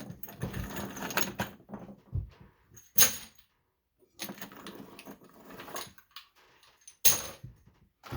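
Christmas light string and its small plastic bulbs being handled and cleared away: rustling and clicking of plastic and wire, with two sharper knocks about three seconds in and about seven seconds in.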